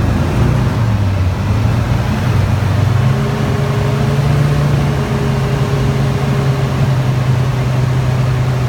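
Light aircraft engine droning steadily, heard close; its pitch rises a little about three seconds in and then holds as the engine speed changes during the manoeuvre.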